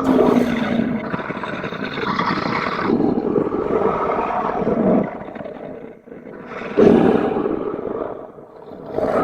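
Monster roar sound effects: a long, rough roar lasting about five seconds, then a second, shorter roar that starts sharply about seven seconds in and fades away.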